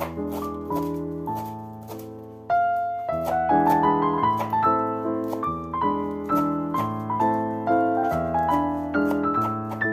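Background piano music, a series of struck notes and chords, each dying away before the next.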